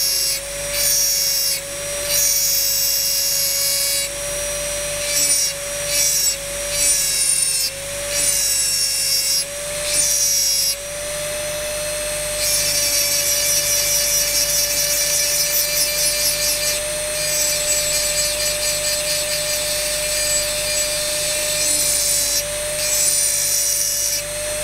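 Handheld rotary engraving tool running at a steady whine while its large diamond burr grinds into wet crystal glass. The grinding comes in short strokes of about a second at first, then runs more continuously from about halfway through.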